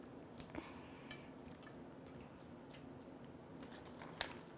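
Faint clicks and soft rustling of salad tongs and a serving utensil in a salad bowl as dressed lettuce is lifted out, with one sharper click about four seconds in.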